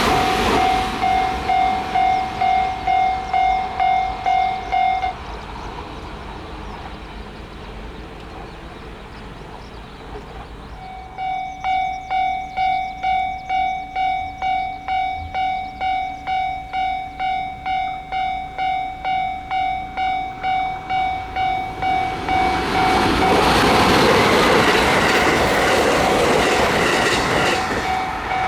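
Japanese railway level-crossing warning bell ringing in a steady pulse, a little under two strikes a second. It stops about five seconds in and starts again about eleven seconds in. A train then passes loudly through the crossing in the last few seconds while the bell keeps ringing.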